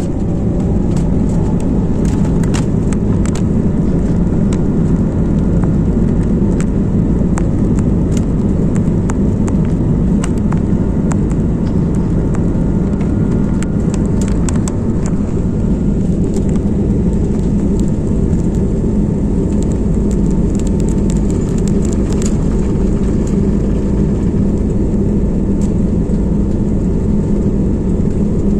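Airbus A320neo heard from inside the cabin during its take-off roll: the engines run at take-off thrust with a loud, steady rumble. A whine rises in pitch over the first second or two, and many short clicks and rattles run through it.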